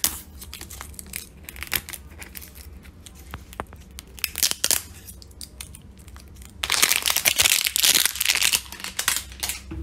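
Plastic crinkling and clicking as a tub of hair toner and its plastic wrapping are handled close to the microphone: sparse clicks and crackles at first, then a louder, dense stretch of crinkling about two-thirds of the way in.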